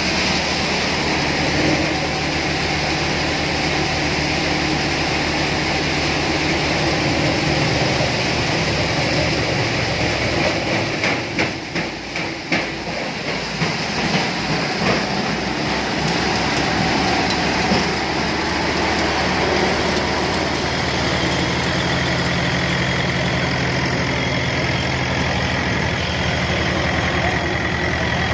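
Tractor engine running steadily, driving a threshing machine as it works. The sound dips and wavers for a few seconds around the middle.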